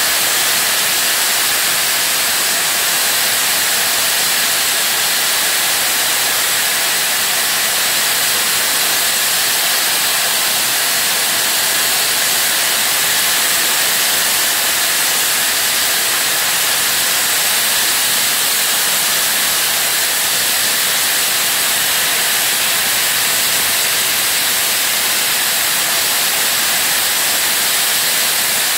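Peppercorn A1 Pacific steam locomotive 60163 Tornado standing with steam escaping in a steady, loud hiss.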